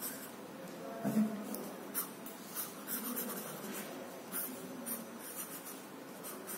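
Coloured pencil sketching on drawing paper: a light scratching in short, irregular strokes as the figure's lines are drawn.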